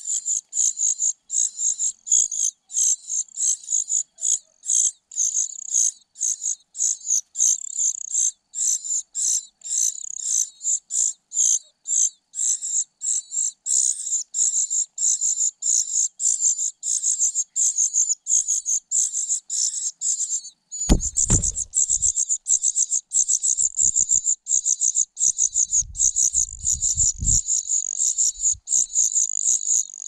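Nestling birds begging at the nest, among them a parasitic cuckoo chick: a long, unbroken series of thin, high-pitched calls, several a second. About two-thirds of the way through there is a brief low thump, and a low rumble follows a few seconds later.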